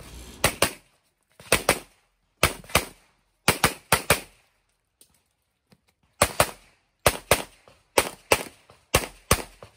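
A Limited-division competition pistol fired in quick pairs, two shots about a quarter second apart, pair after pair roughly once a second, with a pause of about two seconds near the middle.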